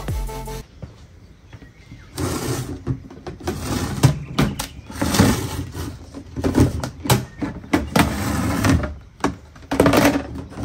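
Grey plastic recycling bins being handled: hinged plastic lids lifted, set down and fitted, giving irregular knocks and hollow plastic clatter. The tail of background music ends just before.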